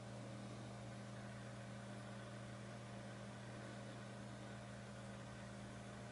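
Faint steady low hum with hiss, with no distinct events: room tone.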